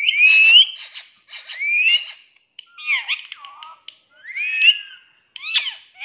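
Rose-ringed (Indian ringneck) parakeet vocalizing in a string of short, high, whistle-like calls that glide up and down in pitch, about six bursts with brief gaps between.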